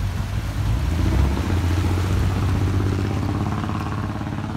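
Jeep Wrangler's engine running steadily as it drives through a creek, with water splashing around its tyres.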